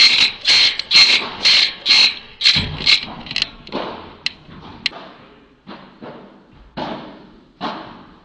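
Hand claps, about eight in quick succession at roughly two a second, ringing in the hall. They are followed by scattered single knocks of padel ball strikes and bounces.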